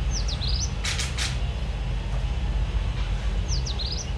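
Steady low rumble, with a short high chirping call heard twice, about three seconds apart, and three sharp clicks about a second in.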